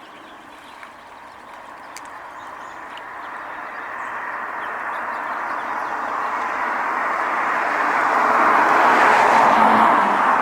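A vehicle passing by, its tyre and road noise growing steadily louder for most of the time, loudest near the end, then starting to fade.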